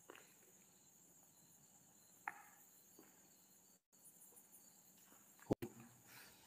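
Near silence: room tone with a faint steady high hiss and a few faint ticks, then a short sharp double knock about five and a half seconds in.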